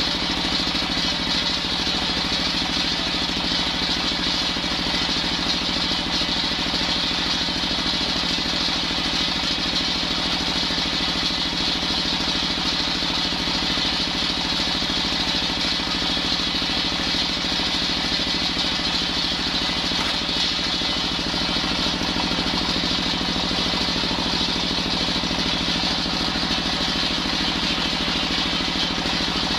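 Single-cylinder stationary diesel engine running steadily, driving a spinning circular saw blade on a saw bench, with no change in its note.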